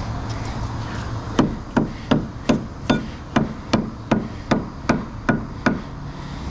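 A heavy metal tube, which the finder takes for a gun barrel, knocked against a wooden deck railing about a dozen times in a steady rhythm of roughly two and a half strikes a second, to shake packed mud and sand out of its bore.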